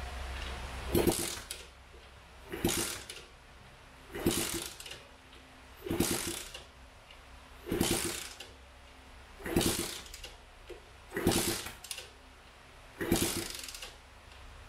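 Newly installed Lifan 125 semi-automatic four-speed engine in a Honda CT70 being kickstarted over and over, eight kicks at about one every second and three quarters. Each kick is a short rush of cranking noise, and the engine does not fire and keep running between kicks: the first start attempt.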